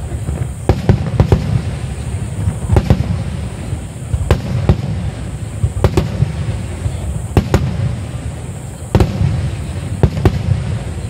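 Aerial firework shells bursting in a display: about a dozen sharp bangs at irregular intervals, some in quick pairs, over a continuous low rumble.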